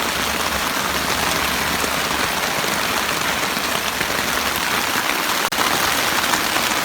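Heavy monsoon rain falling steadily in a dense, even hiss.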